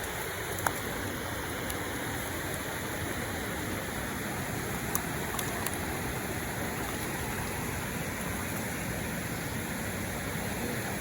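Steady rush of flowing river water, with a couple of faint clicks.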